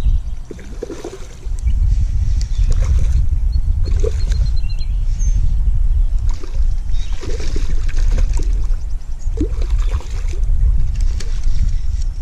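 Wind buffeting the microphone in a steady low rumble, with irregular short splashes as a hooked rainbow trout thrashes at the water's surface.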